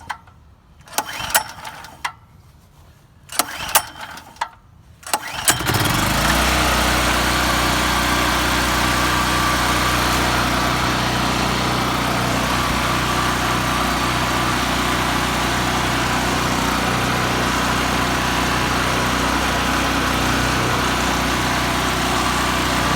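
Predator 3200 generator's small gasoline engine being pull-started on choke after sitting two or three years. A few quick recoil pulls with sharp clicks, then it catches about five and a half seconds in and runs steadily.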